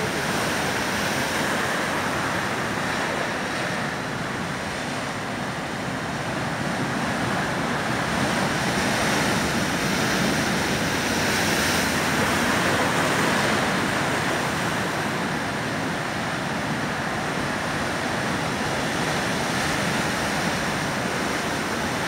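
Ocean waves breaking on the shore, a steady wash of surf that swells louder around the middle and eases off again.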